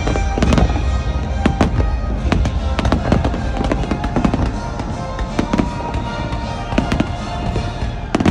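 A fireworks display: many sharp bangs of bursting shells in quick succession, with music with held tones playing under them.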